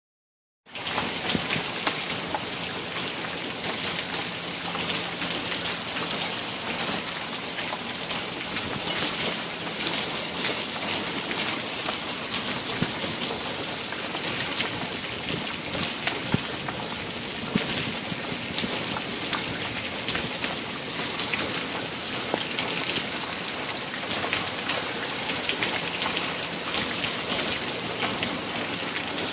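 Heavy rain falling, with a steady hiss of dense drops hitting a surface; it starts abruptly about a second in.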